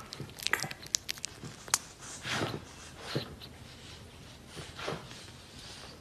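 Newborn puppy making small mouth and nose sounds: a run of small clicks over the first two seconds, then a few soft breathy snuffles.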